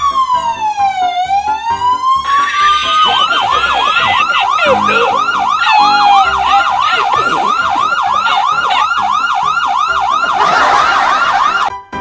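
Police siren sound effect played loud through a portable speaker as a fake siren. It starts as a slow wail, rising and falling, and about three seconds in switches to a fast yelp of three to four sweeps a second. It cuts off suddenly near the end.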